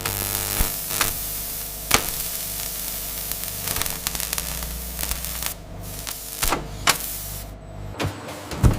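Factory machinery running: a steady hum under a hiss, with a few sharp clacks, about two seconds in and again near the end. The hiss drops away shortly before the end.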